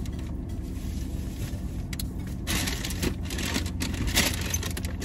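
Rustling and scraping as items are gathered up inside a car, mostly in the second half, with a few light clicks over a steady low hum in the cabin.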